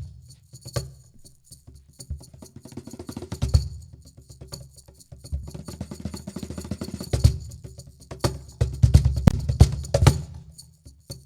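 Percussion played on homemade instruments made from scrap materials: sharp wooden clicks and deep drum hits, with stretches of fast, even shaker-like rattling, in a loose rhythm that pauses briefly near the end.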